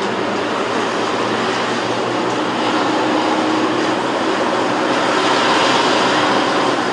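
A steady, loud rushing noise with a low hum under it, growing a little louder partway through.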